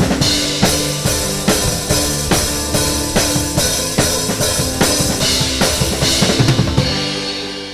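Drum kit playing a steady beat with a worship band, with a busier run of hits just before the song stops about seven seconds in, after which the cymbals and chords ring out and fade.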